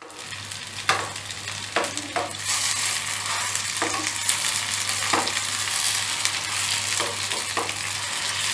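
Rohu fish koftas sizzling steadily as they shallow-fry in mustard oil in an aluminium pan. A metal spatula scrapes and taps against the pan about seven times as the koftas are turned over.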